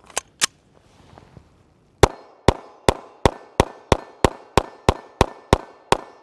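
Caracal EF Quick Sight 9mm pistol: two sharp clicks as it is handled, then from about two seconds in, rapid fire of about a dozen shots at roughly three a second. The pistol cycles with no malfunction.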